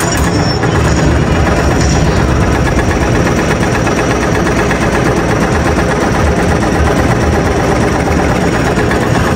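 A steady, loud engine rumble with no breaks, like a running vehicle engine.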